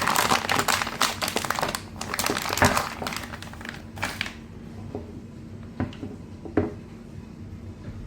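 Packaging crinkling and rustling as a hinge jig is unwrapped and handled for about four seconds, followed by a few light clicks and knocks of the jig being handled.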